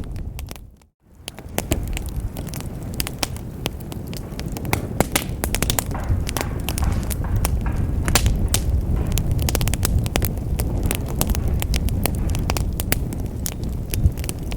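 Wood fire burning in a fireplace: frequent sharp crackles and pops over a steady low rumble of the flames. The sound dips out briefly about a second in, then comes back.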